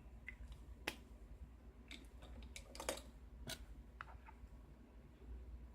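Faint, irregular small clicks and taps, about eight of them, as the small metal parts of a disassembled pin-tumbler lock (pins, springs and tools) are handled.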